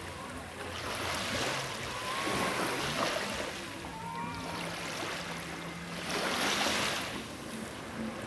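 Small sea waves washing in the shallows, swelling twice, about two seconds in and again around six seconds in, with faint distant voices from the crowded beach.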